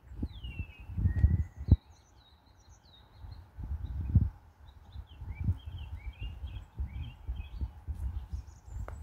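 Several birds calling and chirping: a few whistled notes gliding downward, a flat whistle, then a run of quick high chirps and twitters in the second half. Irregular low rumbles and thumps run underneath and are louder than the birdsong.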